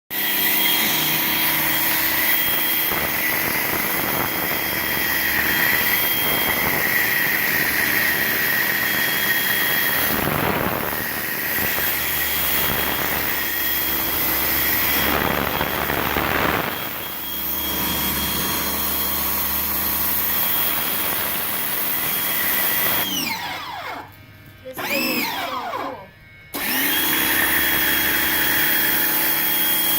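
Pressure washer running steadily with the hiss of its spray. Near the end its motor winds down in pitch and stops for a few seconds, then starts again with a rising pitch and runs on.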